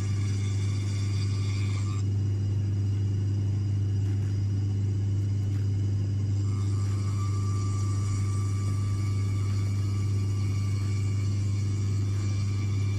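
Shoe repair finishing machine running with a steady low motor hum. A higher whine over it drops out about two seconds in and returns about halfway through.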